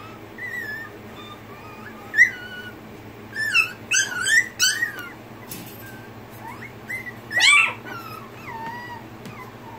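Papillon puppy making short, high-pitched whines and yips while playing, in scattered bursts, with the loudest a little past halfway through.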